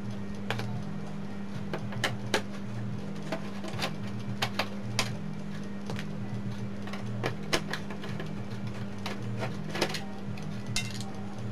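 Scattered sharp clicks and knocks of a screwdriver and a small speaker being handled against the plastic cabinet of an opened CRT television, over a steady low electrical hum.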